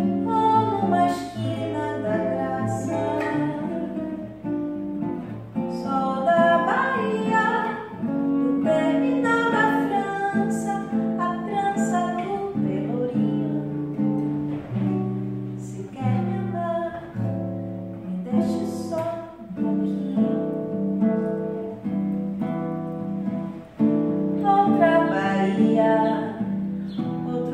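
A woman singing a Brazilian MPB song to a man's plucked acoustic guitar accompaniment.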